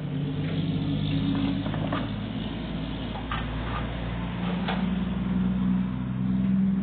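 A steady low mechanical hum, like a running engine or motor, whose pitch shifts partway through, with a few light knocks or clicks.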